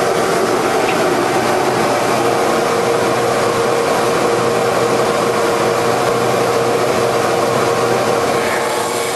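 Hydraulic copying lathe running with a steady machine noise; a steady whine joins it about two seconds in.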